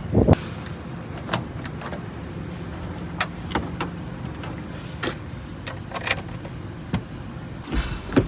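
A car engine running steadily with a low hum, with about a dozen sharp clicks and knocks scattered irregularly over it.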